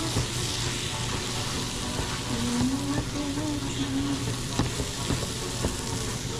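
Sliced carrots and onions with butter and flour sizzling in a frying pan over high heat, stirred with a utensil that clicks against the pan a few times in the second half.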